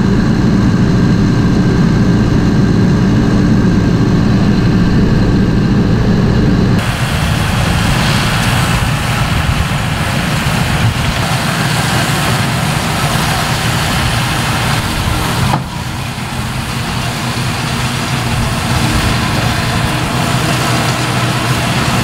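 John Deere 5100E tractor's diesel engine running steadily under load, pulling a round baler that is picking up hay, heard close from the tractor at first. About seven seconds in, the sound changes abruptly to the same tractor and baler heard from farther off, a thinner, hissier engine sound.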